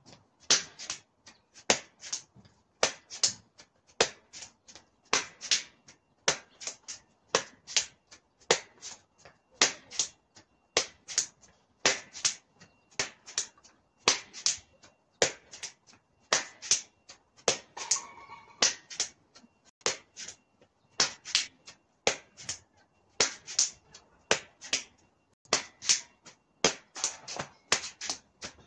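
Hands slapping against the body as the arms swing in a rhythmic arm exercise: sharp smacks about twice a second, often in pairs.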